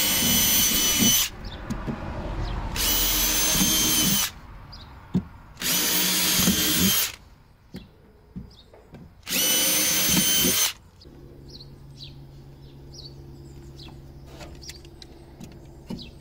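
A power drill running in four short bursts of about a second and a half each, followed by a quieter steady low hum.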